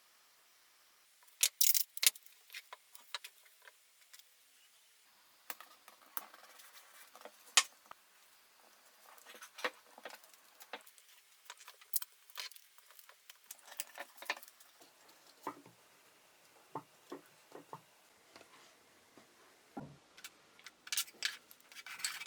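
Scattered light clicks, taps and crinkles of hands handling glued wooden rods and painter's tape, with a few sharper clicks about two seconds in and again near eight seconds.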